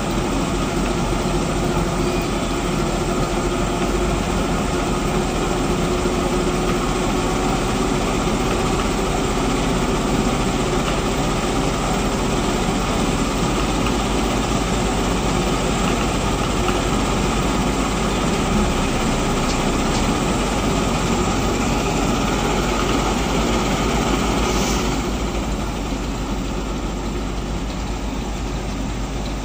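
Heavy truck diesel engines running steadily while hooked up to pull a stuck truck out, dropping a little in level about 25 seconds in.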